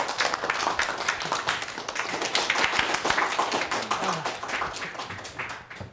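Small audience clapping in applause, thinning out and fading near the end.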